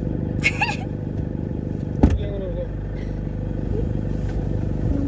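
A vehicle's engine running steadily with road rumble, and a sharp knock about two seconds in.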